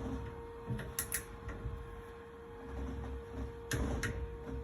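Sharp metallic clicks from a torque wrench set to 6.8 Nm being turned on a steering wheel: a pair about a second in and several more near the end, over a faint steady hum. With the electric power steering powered down, the steering takes the wrench's full set torque to turn.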